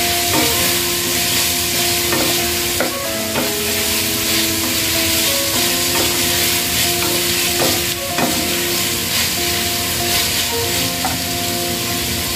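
Diced potato, carrot and onion frying in a non-stick pot, sizzling steadily, while a spatula stirs them with scattered scrapes and knocks against the pan.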